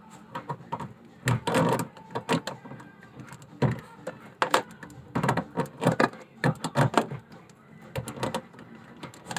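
Irregular clicks and taps of pliers and the filter's fitting against the faucet as a faucet water filter is worked onto its thread. The filter is not catching on the thread.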